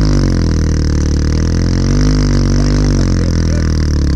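Dirt bike engine revving under load while towing another motorcycle out of a muddy pit on a rope, its pitch rising and falling as the throttle is worked.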